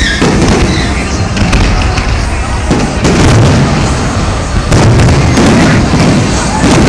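Fireworks display: aerial shells bursting in quick succession, a dense run of booms and crackle that grows heavier from about three seconds in.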